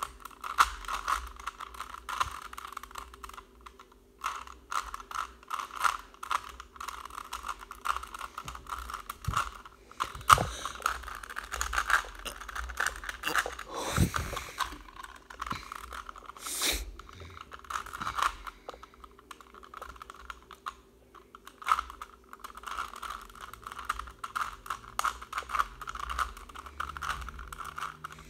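Rubik's cube being turned by hand: quick, irregular plastic clicks and rattles of the layers snapping round, with a louder knock about halfway through.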